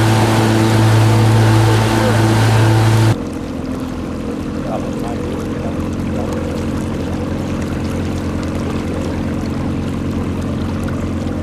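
Boat engine running steadily with rushing wind and water noise. About three seconds in, the sound cuts abruptly to a quieter, steady engine hum.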